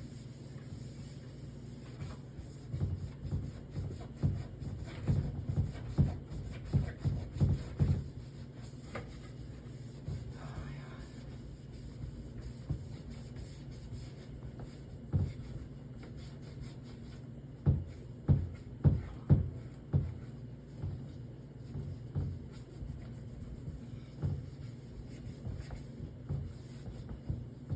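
Scrubbing the inside of a fridge by hand: two runs of quick rubbing strokes, about two a second, with a few single strokes between. A steady low hum runs underneath.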